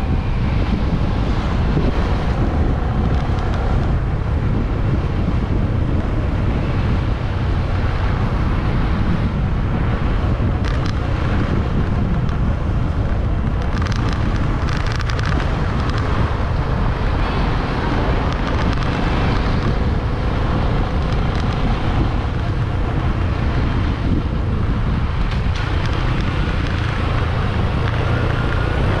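Steady wind rushing over the microphone of a camera riding on a moving motorbike, with the bike's engine and tyre noise running underneath.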